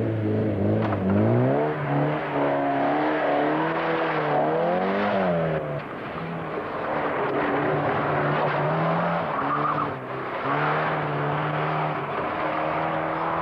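Rally car engines revving hard at full throttle, their pitch climbing and dropping with gear changes and lifts in the first few seconds. From about six seconds in, a steadier high-revving note follows, broken by brief shifts.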